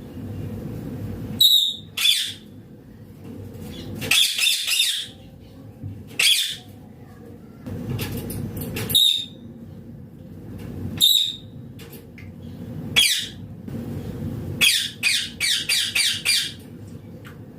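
Green ringneck parakeet squawking: short shrill calls every second or two, then a quick run of about six calls near the end, over a steady low background hum.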